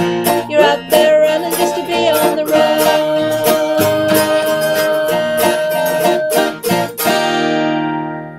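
Live acoustic band playing the closing instrumental bars of the song in quick plucked-string notes, then striking a final chord about seven seconds in that rings out and fades.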